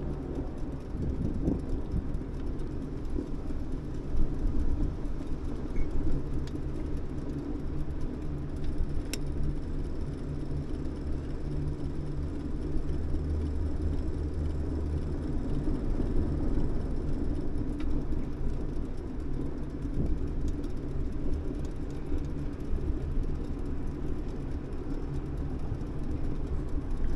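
Steady rumble of a bicycle ride: tyres rolling on the asphalt cycle lane and wind on the microphone. A faint low hum swells and fades around the middle, with a few light clicks.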